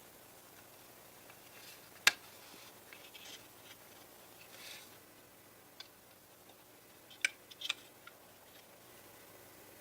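Quiet room with a few scattered sharp clicks and light handling rustles; the loudest click comes about two seconds in, and a few more follow near the end.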